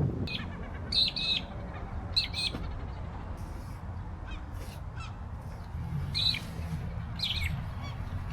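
Birds calling: short, harsh, caw-like calls in quick pairs about one and two seconds in, then twice more near the end, over a steady low rumble.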